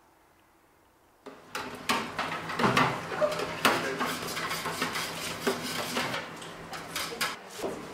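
After about a second of near silence, dishes, pots and cutlery clatter at a kitchen sink, with tap water running into a steel pot, over a low steady hum.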